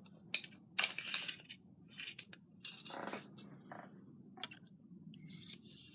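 Handling noise: scattered light clicks and rustles of small parts as a long external wire antenna for a portable world-band radio is handled and gathered up.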